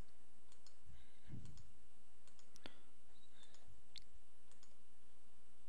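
Computer mouse button clicking at irregular intervals, single clicks on a screen's down-arrow button, over a faint steady low hum.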